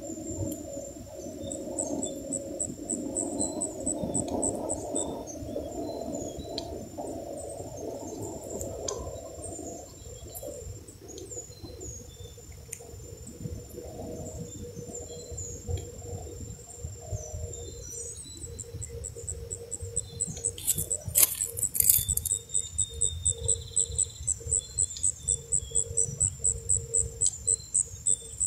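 High-pitched insect chirping that becomes a fast, regular pulse of about three chirps a second in the last third, over a low background rumble. There is one sharp click about three-quarters of the way through.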